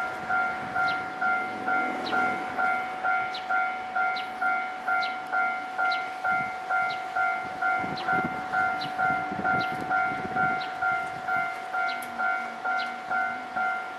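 Japanese railway level-crossing alarm sounding its electronic bell, an even ringing clang about two and a half strikes a second. A train rumbles through from about six to ten seconds in.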